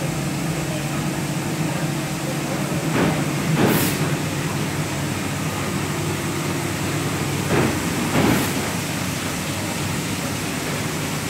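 2001 Wohlenberg Quickbinder perfect-binding machine running: a steady mechanical hum with low held tones, and a pair of brief rushing noises about every four and a half seconds as the machine cycles.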